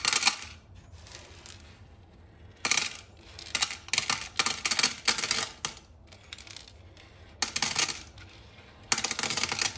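Small metal nuts clinking and rattling against each other as handfuls are dropped and sorted into piles, in about five separate clusters of sharp clicks with quiet gaps between.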